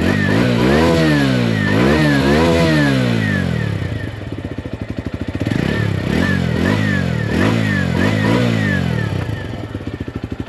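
TVS Sport BS6's 110 cc single-cylinder four-stroke engine revved from idle, heard at its exhaust silencer: a run of quick throttle blips, rising and falling, then a short settle back to idle around the middle, then another run of faster blips before dropping back to idle near the end.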